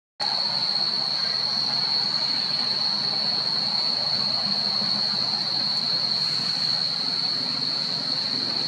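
Cicada chorus: a steady, high-pitched drone that holds one pitch without a break, over a faint low background hum.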